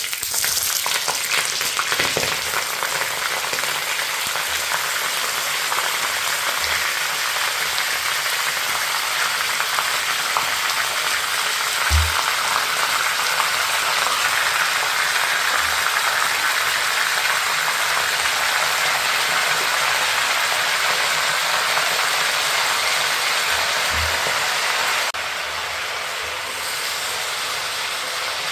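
Mutton frying in hot oil in a karahi, a steady loud sizzle, with a few soft knocks along the way. The sizzle eases slightly near the end.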